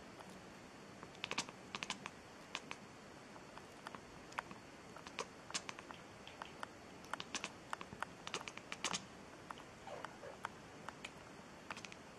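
Scattered light clicks and taps at an irregular pace, with a faint, thin cat mew about ten seconds in.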